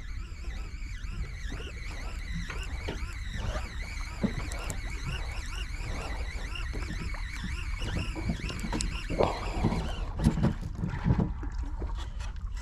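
Shimano Ocea Jigger overhead jigging reel being cranked, its gears giving a faint wavering whir, over a steady low rumble of wind and boat noise. A few light knocks near the end.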